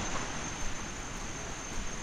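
Steady rush of a flowing hot-spring stream, with a thin, high, unbroken insect trill from the jungle above it.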